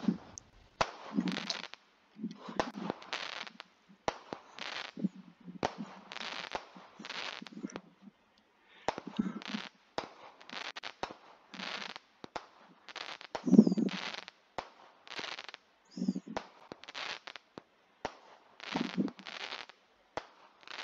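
A consumer multi-shot firework cake firing from a product demo video's soundtrack: a string of shots, each a low thump followed by a crackling burst, roughly one a second, with sharp pops in between; the loudest shot comes a little past halfway.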